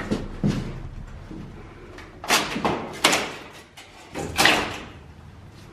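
Crowbar prying wooden plank panelling off a staircase: loud knocks and cracks of wood and metal, three strong ones a second or so apart in the second half.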